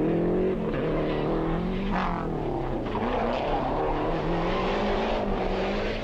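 Rally car engine at high revs, its pitch dropping and climbing as it shifts through the gears, with a sharp pop about two seconds in.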